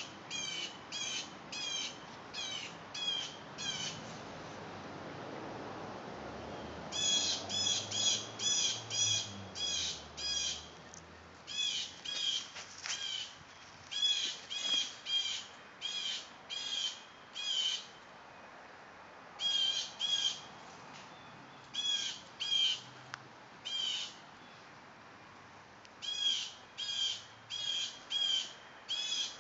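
A bird calling repeatedly: short, high, slightly bent calls about two a second, in runs of five to eight with short pauses between runs.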